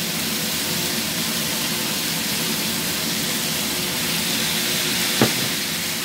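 Zucchini slices and shrimp sizzling steadily in a hot wok, with a single sharp click about five seconds in.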